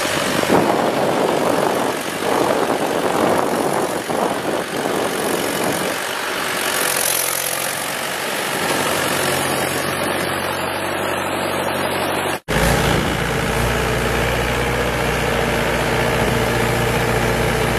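Mahindra 575 DI tractor's four-cylinder diesel engine running hard under load, hauling a trolley heaped with earth. The sound cuts out for an instant about twelve seconds in, and the engine then runs on with a heavier, steadier note.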